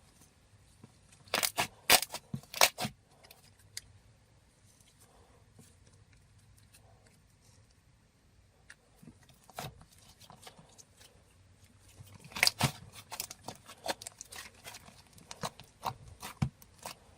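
Clay slime being poked and pressed, making sharp clicky bubble pops in two bursts, one early and a longer one near the end, with scattered soft pops between.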